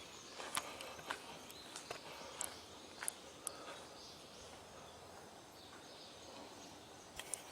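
Faint outdoor ambience with scattered brief, high-pitched calls of wild birds and a few soft clicks.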